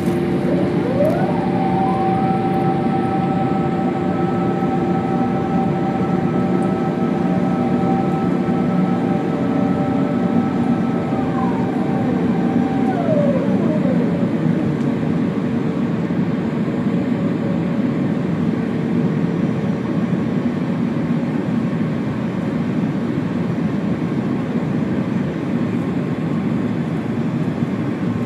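Cabin noise of an Airbus A350-900 with Rolls-Royce Trent XWB engines: a loud, steady engine and airflow rumble. A set of whining tones rises quickly about a second in, holds, and glides back down about twelve to fourteen seconds in.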